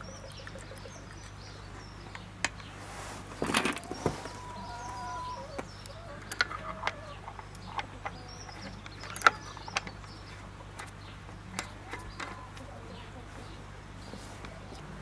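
Small metallic clicks and knocks as a brass filler cap is handled and fitted onto a filler hole of a 1937 Petter M-type stationary engine, which is not running; the sharpest knock comes about nine seconds in. Birds chirp faintly in the background.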